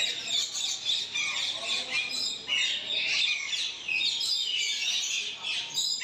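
Many caged parakeets and parrots chirping and squawking at once: a dense, unbroken chatter of short overlapping high calls.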